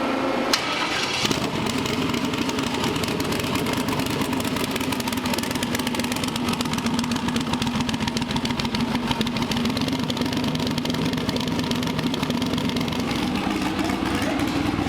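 Twin-turbo LS V8 on methanol starting up in the first second, then running at a steady idle. It is running on a fresh set of spark plugs after the previous ones fouled.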